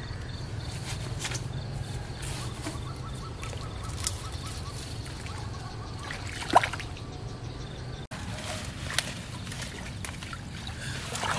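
Person wading through shallow pond water: sloshing and trickling of water around the legs, with one sharp knock about six and a half seconds in.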